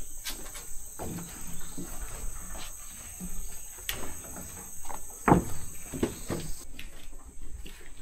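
Footsteps climbing wooden stairs and crossing a wooden plank floor: irregular knocks and thuds, the loudest a little past five seconds in. Under them, a steady high insect drone that weakens near the end.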